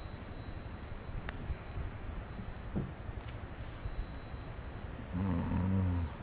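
Steady high-pitched chirring of crickets or other insects, with a brief low hum about five seconds in.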